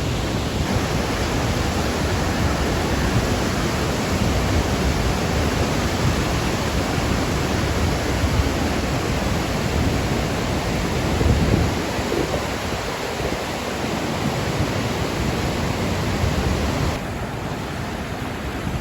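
Rain-swollen creek in flood, rushing water making a loud, steady, even roar with a rumbling low end; it softens slightly near the end.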